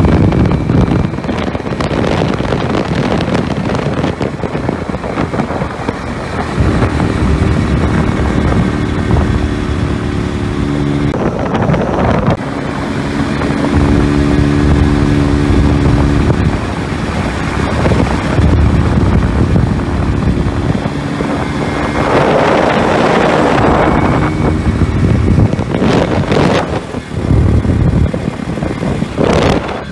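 1975 Hercules W2000's single-rotor Sachs Wankel engine running steadily as the motorcycle is ridden along, mixed with heavy wind rush on the microphone. The wind rush swells louder in gusts over the last several seconds.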